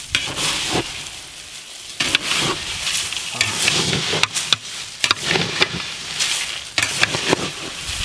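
Crushed Lay's potato chips mixed with chopped onion, tomato and peanuts being stirred with long metal spoons in a large metal pot: a crackly, crunching rustle in irregular strokes.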